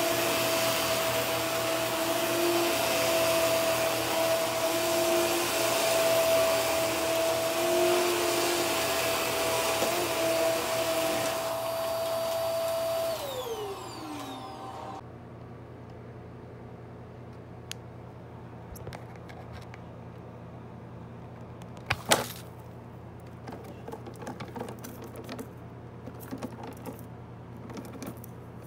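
Upright vacuum cleaner running on carpet with a steady motor whine. About halfway through it is switched off and the motor winds down, its whine falling in pitch. Then come scattered handling clicks and one sharp knock.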